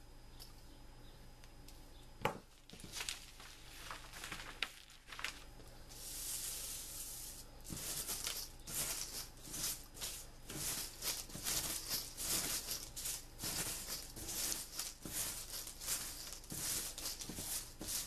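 A few sharp clicks in the first few seconds. From about six seconds in, a bundle of wooden matchsticks is rubbed and rolled between the hands on a sheet of paper, making a quick, dry, continuous rustling and clattering as the last match-head powder is knocked off.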